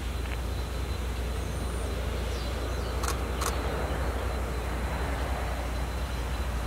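Steam locomotive standing at a distance, with a steady hiss over a low rumble. Two sharp clicks come about three seconds in.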